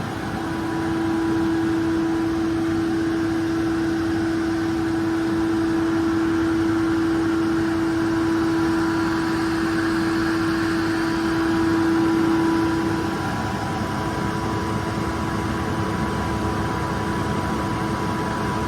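Kaeser SK25T rotary screw air compressor running under load, pumping the receiver up toward its 9.5 bar unload point. It is a steady machine noise with a steady hum that drops away about two-thirds of the way through.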